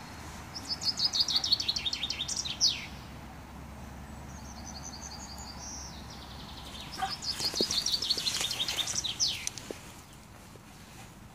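Common chaffinch singing two full songs about six seconds apart, each a run of quick notes falling in pitch and ending in a fast downward flourish.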